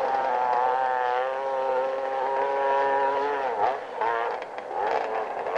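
Dirt bike engine held at high revs as the bike climbs a steep hill. About three and a half seconds in, the revs drop sharply, then rise and fall several times as the throttle is worked.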